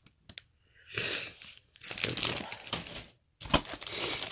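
Plastic bags of model-kit sprues crinkling as they are handled. A few light clicks come first, then steady crinkling from about a second in, with a short break a little after three seconds.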